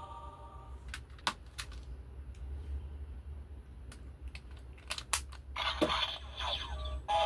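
A Super Sentai toy transformation gun: its electronic sound effect cuts off at the start, followed by scattered sharp plastic clicks as the toy is handled, and a brief noisy electronic sound about five and a half seconds in.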